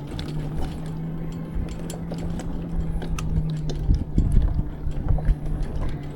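A motor vehicle's engine running with a steady low drone, with rumble and scattered knocks and rattles, more of them about four seconds in.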